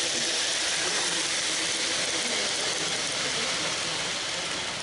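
Model train running on the layout close to the microphone: a steady, even rushing hiss.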